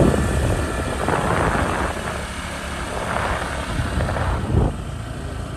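Wind buffeting the microphone over the low rumble of a motorcycle on the move, with two swells of louder noise about a second and three seconds in.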